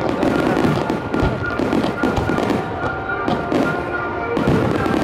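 Aerial fireworks shells bursting in quick, irregular succession, a dense string of bangs.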